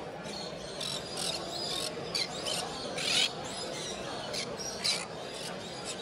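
Many caged birds at a bird show chirping and squawking, short high calls coming every half second or so and overlapping, over a steady low background murmur.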